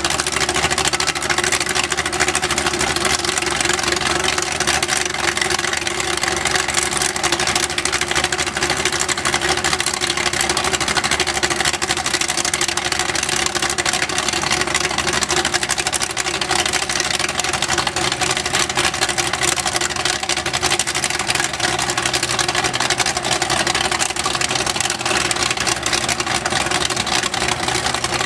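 Tracked excavator's diesel engine running steadily under load while its boom hoists a truck stuck nose-down in a mud pit.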